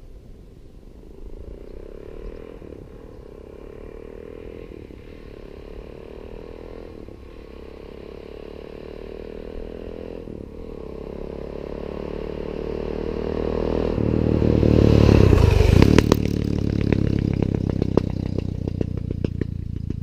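Suzuki DR-Z400S single-cylinder four-stroke running through a Higashi aftermarket exhaust, accelerating toward the microphone and shifting up several times, each gear a rising note. It passes close by about fifteen seconds in, the loudest moment, with a drop in pitch, then fades as it rides away.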